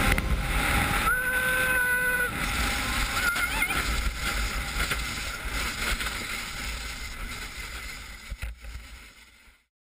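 Bobsleigh runners rushing over the ice with wind buffeting the onboard microphone, a loud, continuous rushing noise. A steady high tone sounds for about a second near the start, and the whole sound fades away near the end.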